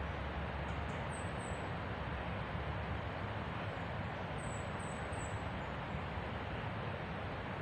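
Steady rushing outdoor background noise, with a few faint, very high, short falling chirps: two about a second in and three more in quick succession around the middle.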